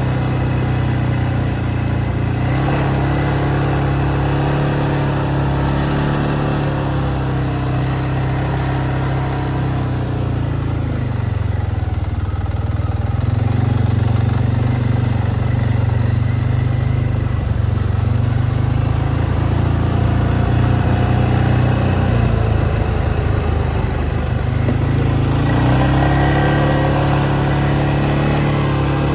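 Motorcycle engine running under way, a steady engine note that shifts in pitch about a third of the way in and again near the end.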